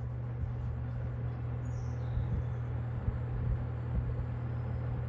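Robeson box fan running, its motor humming low under a steady rush of air, just settling at speed, with small irregular clicks in the air noise.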